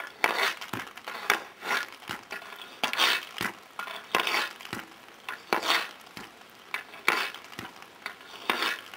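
Ice hockey stick and puck clacking on a hard outdoor rink surface as the puck is passed against a homemade inner-tube puck passer and sent back, a sharp clack every half second to a second, each with a short scrape.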